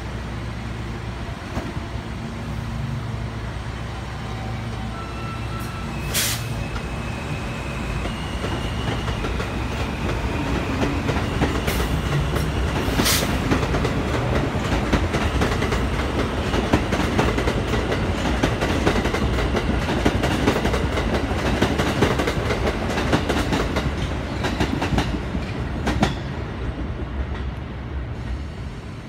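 R160B subway train with Alstom propulsion pulling out of the station: a low steady hum, then the propulsion whine rising in pitch in steps as it accelerates. Then a rumble with a rapid clatter of wheels over the rail joints as the cars pass, fading near the end.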